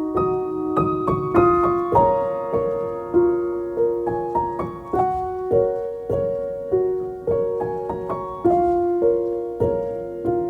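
Background piano music: single notes and chords struck about every half second, each ringing and fading, in a slow, gentle melody.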